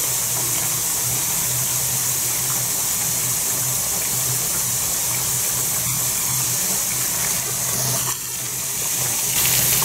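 Steady hissing rush of hot melted beeswax and water in a wax-rendering kettle, with a low hum underneath. It dips briefly about eight seconds in and grows a little louder near the end as the drain plug is pulled to let the wax run out.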